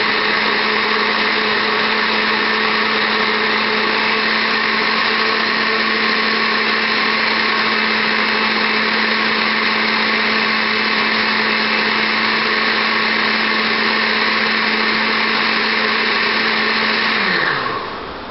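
Countertop blender motor running steadily at full speed, puréeing aloe vera with water and honey. Near the end it is switched off and winds down with a falling whine.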